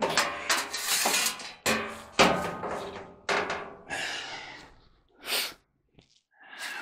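Knocks, thunks and scraping of loose parts being handled and set into a stripped clothes dryer cabinet. They come thick for the first four seconds or so, then two short knocks follow near the end.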